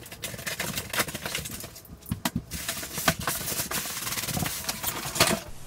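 Large cardboard shipping box being opened and handled: a quick irregular run of crackles, knocks and thumps as the cardboard flaps are pulled and the box is worked open, with some rustling.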